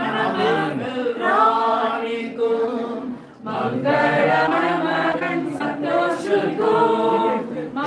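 A group of voices singing together, largely unaccompanied, with a brief pause about three and a half seconds in before the singing resumes.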